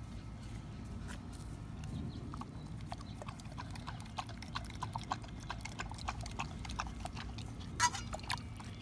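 Young pit bull–boxer mix mouthing and chewing a raw chicken leg quarter: irregular small clicks and crunches of teeth on meat and bone, with a couple of louder ones near the end.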